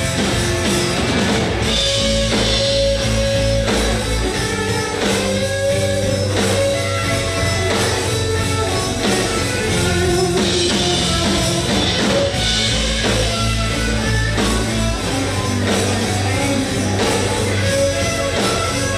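Live rock band playing: electric guitars over a drum kit, steady and loud throughout.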